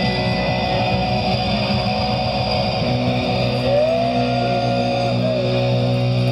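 Live rock band with electric guitars and bass holding a sustained closing chord, without drums. About halfway through, a lead guitar note bends upward, is held, then drops back near the end.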